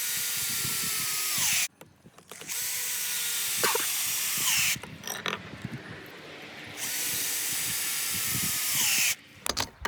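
Power drill driving screws: three runs of about two seconds each, the motor's whine dropping in pitch at the end of each run as the screw seats, with a few clicks in between.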